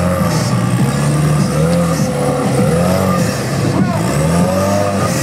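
Rock-crawler trial buggy's engine revving in repeated bursts, its pitch rising and falling about once a second as the buggy crawls up over boulders.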